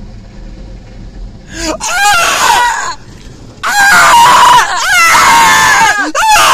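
A man screaming loudly in two long bursts, the second held for more than two seconds: a playful, exaggerated scream of mock terror.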